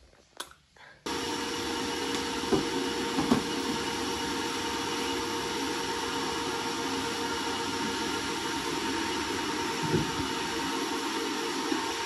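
Canister vacuum cleaner running steadily, cutting in abruptly about a second in after near silence, with a few light knocks during the run.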